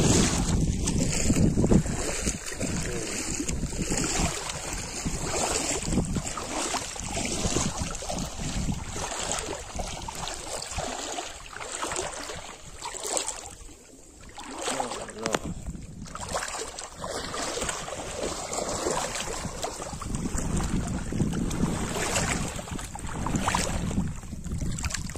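Water splashing and sloshing as a person wades through a shallow pond, with wind rumbling on the microphone. Loudest in the first couple of seconds, with a short quieter stretch about halfway.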